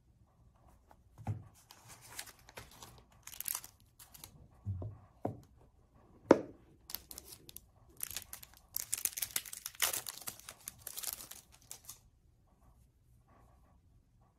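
Packaging handled by hand: plastic and paper wrapping crinkling and tearing as a microfiber cleaning cloth is unwrapped, densest from about nine to twelve seconds in. A few soft knocks come first, and a single sharp snap about six seconds in is the loudest sound.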